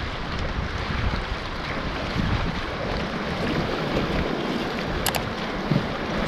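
River water rushing around an inflatable raft, with wind buffeting the microphone. A sharp double click about five seconds in.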